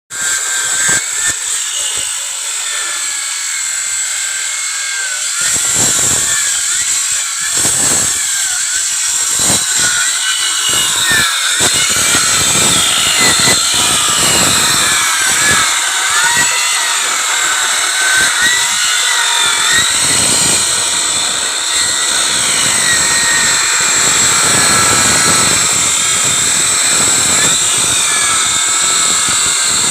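Power tool cutting wood, a continuous high whine whose pitch wavers up and down as the load on the blade changes.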